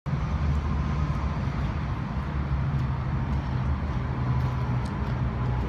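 Semi-truck diesel engine idling: a steady low rumble that does not change.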